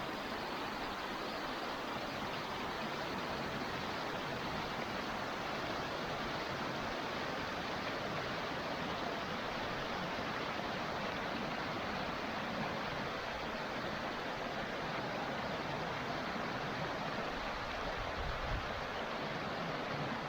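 Waterfall on a small stream: a steady, even rush of falling water.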